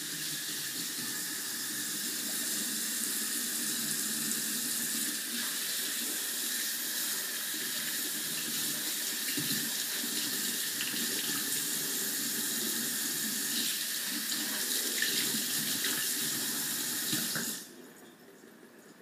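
Kitchen faucet running, its stream splashing over a whole tilapia and into a stainless steel sink as the fish is rinsed by hand. The water is shut off near the end.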